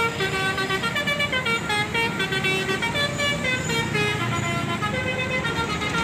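Indonesian 'telolet' bus horn playing a quick tune of stepped musical tones over a steady low hum, cutting off suddenly at the end.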